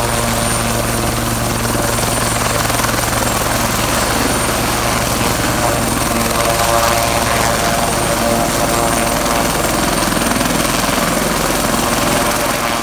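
Sikorsky S-76C+ helicopter running on the ground with its rotors turning as it taxis, its twin Turbomeca Arriel 2S1 turboshaft engines giving a steady high turbine whine over the rotor noise.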